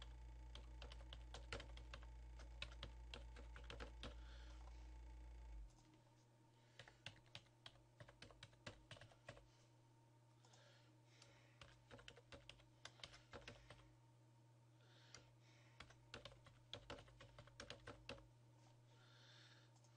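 Faint typing on a computer keyboard: irregular runs of keystrokes with short pauses between them, over a steady low hum.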